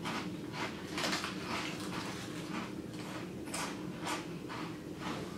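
Close-up chewing of crunchy puffed wheat snack chips (Sabritones chile and lime), a run of short, crisp crunches at an uneven pace.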